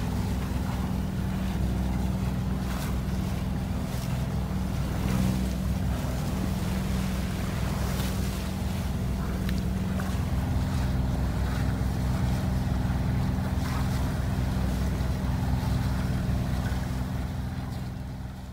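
Sailboat's engine running steadily under throttle, with wind and water rushing past the hull in choppy seas. The sound fades out near the end.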